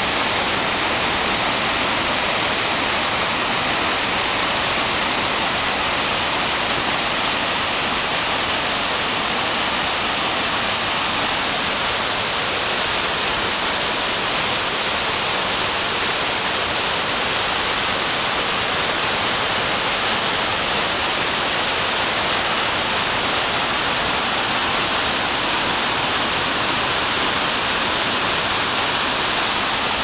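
Large waterfall with a heavy flow of water plunging over a rock ledge into a gorge: a loud, steady rush of falling water.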